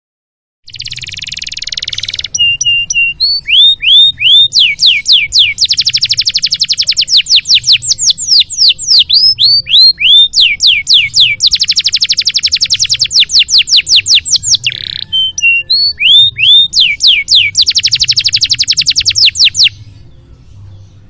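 Domestic canary singing a long song: a short harsh buzz to open, then strings of downward-sweeping whistled notes and long, very fast trills, stopping sharply near the end.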